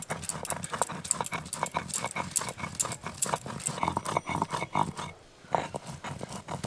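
Stone muller rocking and knocking on a grooved stone grinding slab (sheel-nora), crushing fire-roasted dried red chillies into paste. A fast, uneven run of sharp knocks, several a second, with a short pause about five seconds in.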